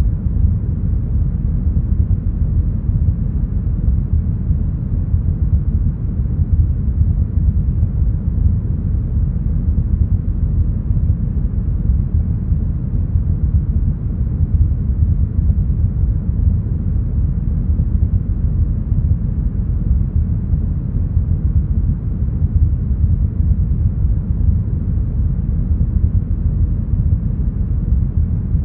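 Deep smoothed brown noise: a steady, even low rumble of noise with the highs cut away, nothing above the low mids.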